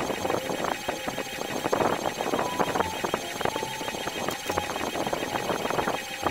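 Canon PIXMA MG2540S inkjet printer printing its print head alignment pattern, played fast-forward: dense rapid clicking with short motor whines that jump between pitches as the print head carriage and paper feed move.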